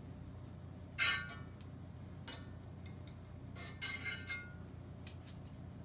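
A metal spoon clinking and scraping against a skillet while spreading shortening in the pan: a few sharp clinks with a short ring, the loudest about a second in and a quick cluster around four seconds.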